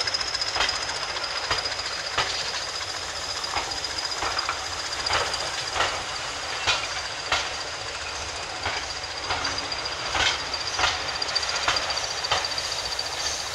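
Railway passenger coaches rolling past close by, their wheels clicking over the rail joints about once every second or less, over a steady rumble. A thin high whine runs under it and slowly falls a little in pitch.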